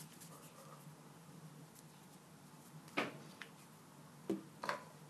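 Quiet room tone with a few light taps and clicks from hands and play dough being handled on a tiled surface: one about three seconds in and two more close together near the end.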